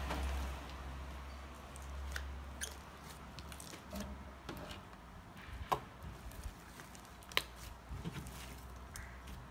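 Soft clay slime being kneaded and pressed by hand on a table, giving scattered small clicks and squishes. A low rumble sits under the first couple of seconds.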